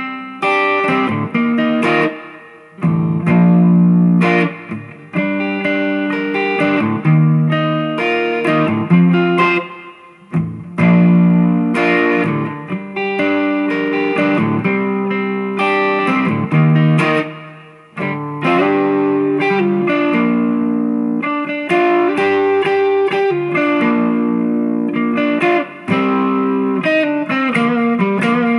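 Gibson Les Paul electric guitar through a Fender Mustang II amp set to a light crunch: chords played and left to ring, changing every second or two, with a few short breaks.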